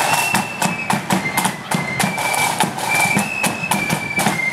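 Marching flute band playing a tune: shrill high flute notes held and stepping from note to note, over sharp drum beats.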